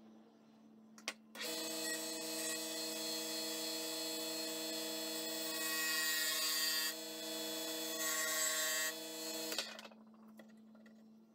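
Central Machinery mini wood lathe switched on with a click about a second in, running with a steady motor whine while a parting tool cuts grooves into a spinning poplar blank. The cutting noise swells twice, and everything stops abruptly near the end.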